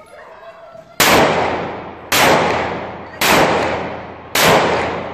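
.30 bore (7.62×25mm Tokarev) pistol fired four times into the air, shots about a second apart. Each shot is a sharp crack that dies away in a long echo.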